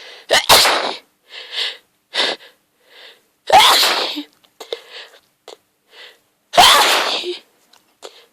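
A woman's hayfever sneezing fit brought on by grass pollen: three loud sneezes about three seconds apart, with short, quieter sounds between them.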